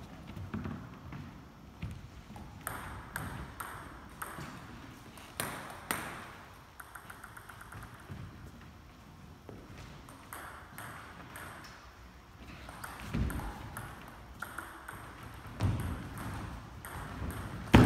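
Table tennis ball clicking off bats and table in rallies, sometimes in quick runs of bounces, with a few low thumps, the loudest at the very end.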